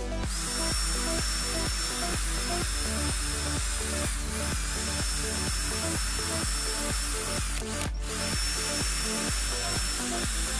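Cordless drill running a small wire brush against a cast-iron vise base: a steady high motor whine with a scrubbing hiss, dipping briefly about four seconds in and cutting out for a moment about eight seconds in. Background music with a steady beat plays underneath.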